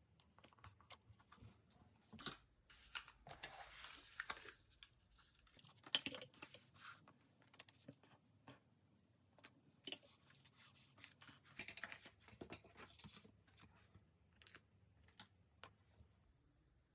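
Faint paper-craft handling: stickers and paper being peeled, crinkled and handled on a desk, with many small ticks and taps and a few longer rasping peels.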